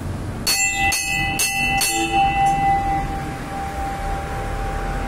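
Hanging temple bell struck four times in quick succession, about two strikes a second, then its tone rings on and slowly fades.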